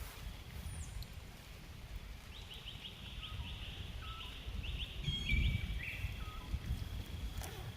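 Outdoor ambience with a steady low rumble, over which a bird gives a rapid trill of about four notes a second for a couple of seconds, followed by a few short high whistled notes.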